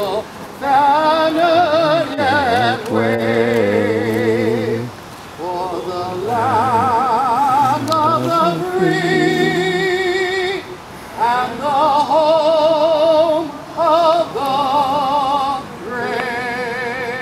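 A solo voice singing an anthem with a wide vibrato, in long held phrases with short breaks between them.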